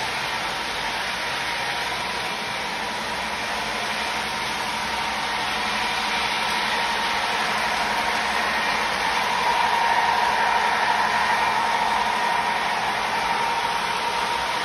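Model trains running on the layout's track: a steady whir and rumble of motors and wheels, growing louder about ten seconds in as a train passes close by.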